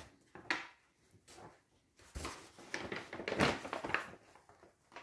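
Large folded paper map rustling and crackling in irregular short bursts as it is handled and unfolded.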